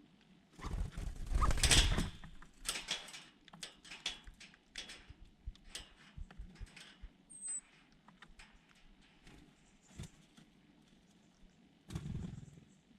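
Birds moving close to the microphone: a loud flutter about a second in, then irregular taps and knocks, one brief high chirp midway, and another short flutter near the end.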